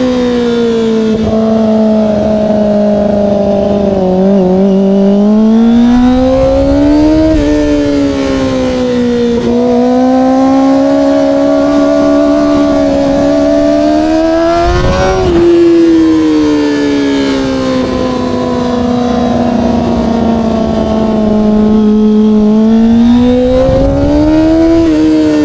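Kawasaki ZX-25R SE's 250 cc inline-four with an Austin Racing aftermarket exhaust running at high revs while riding, its pitch climbing and falling several times as the rider opens and closes the throttle, with one sharp rise and drop about halfway through. A low rush of wind lies under the engine note.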